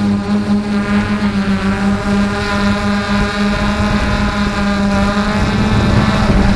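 A motor running steadily at a nearly constant pitch, a loud even drone with slight wavering, growing a little louder near the end. Wind is rumbling on the microphone.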